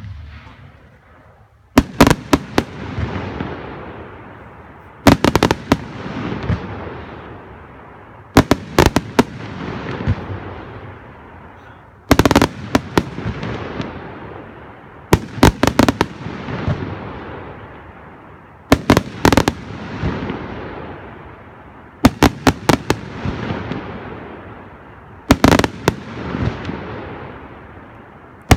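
A 100-shot display firework cake firing in volleys, about nine in all, roughly every three to four seconds. Each volley is a quick run of sharp bangs, followed by a hiss and crackle that fades before the next.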